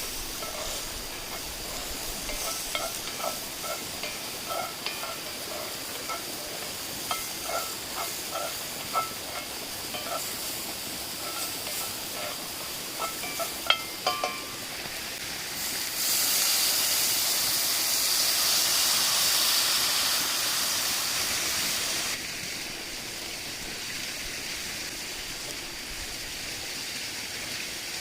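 Pancit canton being stirred in a sizzling pan, with a metal utensil clinking against the pan again and again for the first half. About sixteen seconds in, the sizzle gets much louder for some six seconds, then drops back to a softer steady sizzle.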